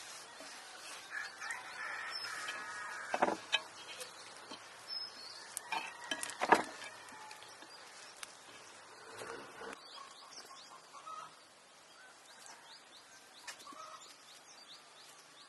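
Chickens clucking with small birds chirping, and two sharp knocks, about three and six and a half seconds in, that are louder than the birds.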